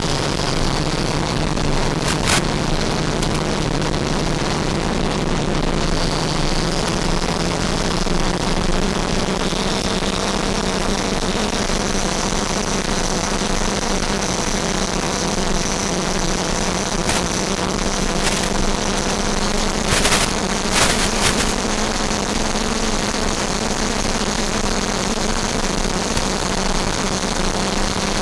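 Electric ducted fan of a Freewing F-5 RC model jet whining steadily in flight, heard from on board with wind rushing over the airframe. The high whine shifts up in pitch about twelve seconds in as the throttle changes, and a few short crackles break through.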